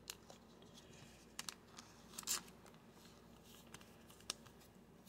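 Faint handling of a trading card in a clear plastic sleeve: the sleeve crinkling and the cards clicking against each other in scattered short ticks and rustles, the loudest about two seconds in.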